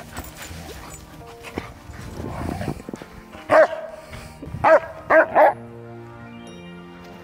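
A dog barking four times, one bark and then three in quick succession, over background music.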